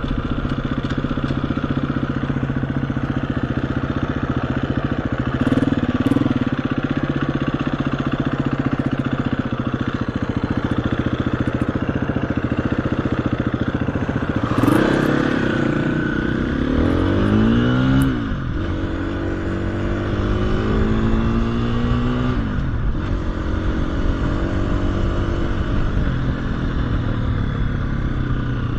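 KTM 350 EXC-F single-cylinder four-stroke trail bike engine running steadily along the lane. About halfway it accelerates: the pitch rises, drops at a gear change, rises again and drops at a second shift.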